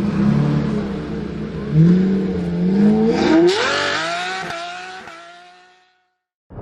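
Car engine running and revving. Its pitch climbs sharply about three seconds in, then the sound fades away.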